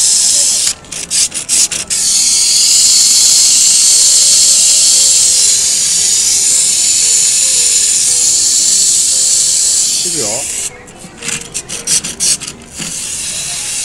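A loud, steady high-pitched hiss that cuts out briefly twice, with a few sharp clicks in the gaps and faint music underneath.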